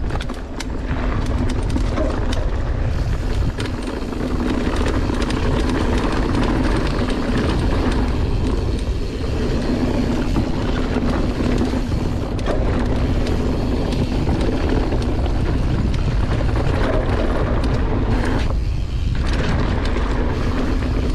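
Mountain bike riding fast down a dirt trail: a continuous rush of wind and tyre noise with rattles and knocks as the bike runs over bumps, over a steady low hum.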